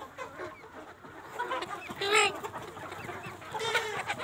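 A flock of desi (country) chickens clucking continuously, with a loud short call about two seconds in and another call near the end.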